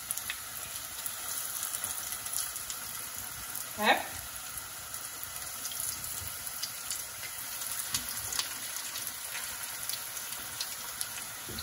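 Breaded cauliflower pieces frying in hot olive oil in a pan: a steady sizzle with scattered small pops as more pieces are laid in.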